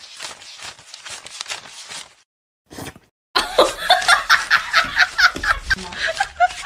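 A wad of paper banknotes being flicked through by hand, a quick papery riffling, for the first two seconds; after a short pause, a burst of rapid laughter starts about three and a half seconds in.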